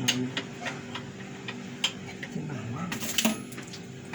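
Scattered metallic clicks and clinks of tools and metal parts during the hand disassembly of a meat slicer, with a quick cluster of clicks about three seconds in.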